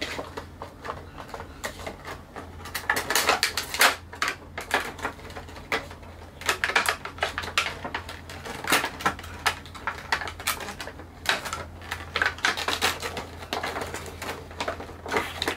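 Cardboard and clear plastic packaging of a Funko Pop vinyl figure box being handled, opened and slid apart: irregular crinkles, clicks and scrapes throughout.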